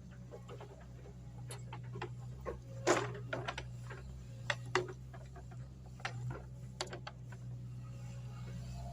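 Mini excavator engine running steadily as a low hum, with scattered clicks and knocks from the digging, the loudest about three seconds in.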